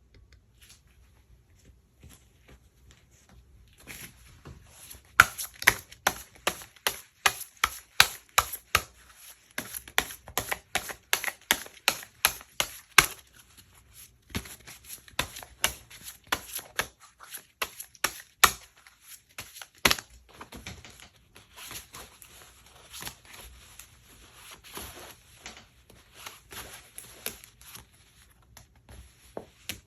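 Tarot cards being shuffled and handled by hand: a rapid run of sharp card slaps, two or three a second, that starts a few seconds in and thins out over the last ten seconds.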